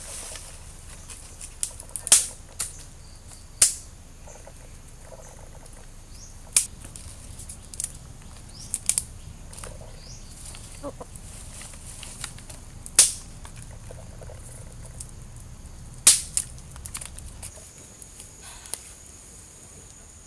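Dry sticks and twigs snapping and crackling as a small wood campfire is laid and catches: a handful of sharp, loud cracks spaced seconds apart, with softer rustling and small clicks between.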